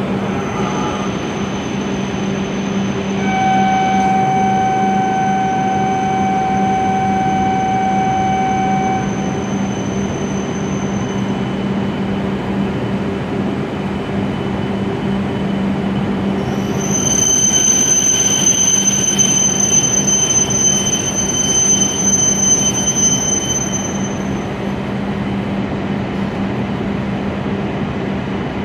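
E7 series Shinkansen train pulling slowly into the platform, running over a steady low hum. Early on a steady mid-pitched tone lasts several seconds. From about halfway a high-pitched squeal comes in and holds for several seconds as the train slows to a stop, then fades.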